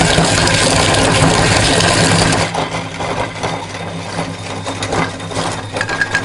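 Electric meat grinder running while grinding plastic toy food: a loud, steady motor hum for about two and a half seconds, then quieter with irregular clicks and crackles.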